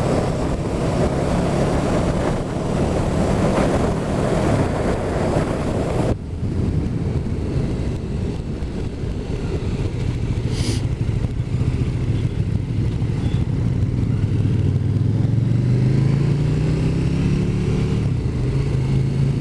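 Motorcycle engine running on the move, with heavy wind rush that drops away suddenly about six seconds in. The engine note rises near the end as the bike accelerates.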